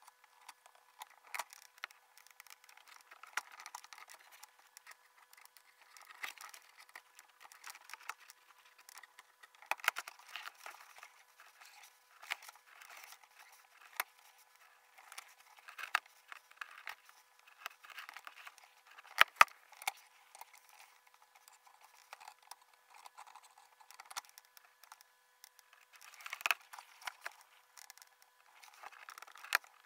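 Scattered clicks and short scrapes of laparoscopic needle holders being handled and worked during suturing, sped up fivefold. The loudest cluster of clicks comes a little past the middle.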